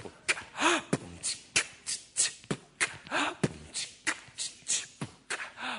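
Beatboxing: a repeating mouth-percussion pattern, 'pu, chi, ka, chi, chi, pu, ka', of kick-drum 'pu', hi-hat 'chi' and snare 'ka' sounds, about three or four strokes a second.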